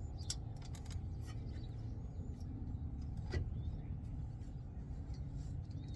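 Steady low vehicle rumble, with scattered light metallic clicks as a 12 mm caliper bolt is started by hand. A brief rising squeak comes about three seconds in.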